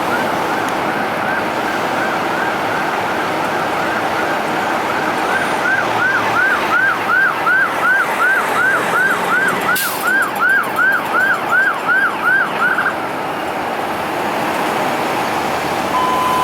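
Emergency vehicle siren in a fast yelp, about three rising-falling sweeps a second over steady road noise. It grows louder about six seconds in as the vehicle approaches, then cuts off.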